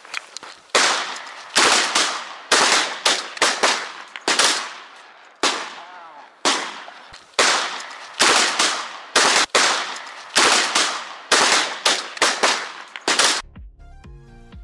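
A rapid run of shotgun shots, about two dozen loud reports in some thirteen seconds, several in quick pairs, each ringing out briefly. They stop abruptly near the end.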